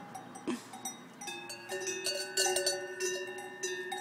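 Large cowbells worn by a small herd of grazing cows, several bells at different pitches clanking and ringing irregularly as the animals move. The ringing grows busier and louder from about a second in.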